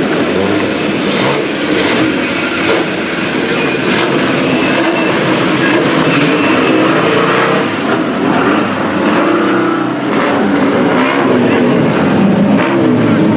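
BMW 2002 racecar's naturally aspirated four-cylinder engine running hard at high revs, its pitch rising and falling as it accelerates.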